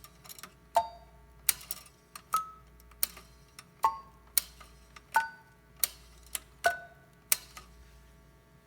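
Buttons of a Western Electric prototype push-button tone-dialing phone clicking as they are pressed one after another, stopping shortly before the end. Five of the presses each set off a brief, weak tone, at a different pitch from press to press. The tone's weakness may come from a failed component or may be how the phone worked in its day; the owner cannot tell which.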